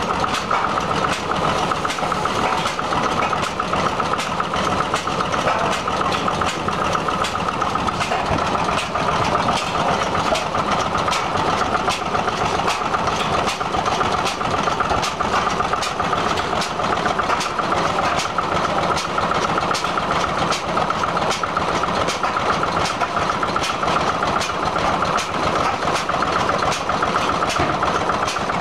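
Vintage stationary engines running together: a steady mechanical clatter with many sharp ticks.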